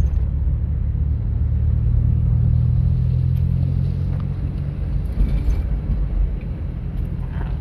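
A car's engine and tyre noise heard from inside the cabin while driving over a cobblestone street: a steady low hum that swells slightly about two seconds in and eases off toward the end.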